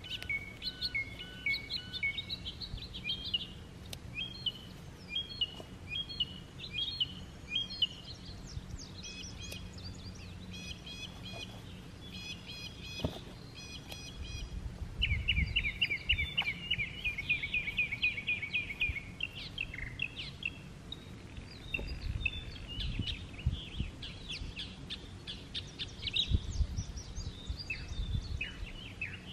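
Several songbirds singing and calling over one another in short repeated whistled phrases, with a fast trill about halfway through. There are occasional low rumbles underneath.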